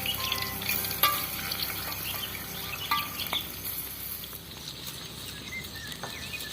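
Food frying in a pan with a steady crackling sizzle, and a few sharp clicks of a utensil stirring against the pan about one and three seconds in.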